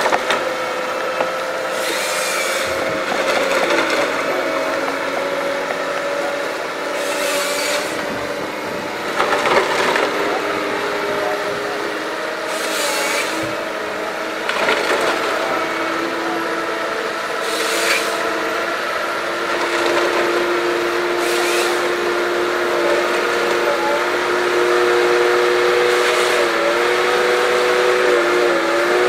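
Tigercat LH855D tracked harvester running steadily under load, its engine and hydraulics holding a drone with shifting pitch, while the Ponsse H8 HD harvester head feeds and saws spruce stems. About seven chain-saw cuts come through as short loud rasps, each a second or so long, every few seconds.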